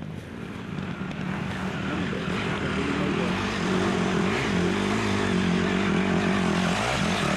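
Off-road dirt bike engine running at steady high revs, getting louder over the first few seconds and then holding, its pitch wavering briefly a couple of times.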